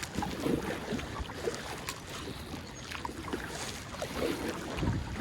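Kayak in shallow river water: faint water noise around the hull with a few light knocks and taps.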